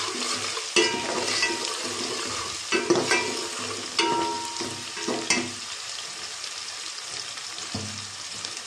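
Chopped onions sizzling in hot oil in a steel pot as they are fried toward golden, while a steel ladle stirs them, knocking and scraping against the pot several times with a ringing metallic clink. After about five seconds the ladle stops, and the oil sizzles on alone, a little quieter.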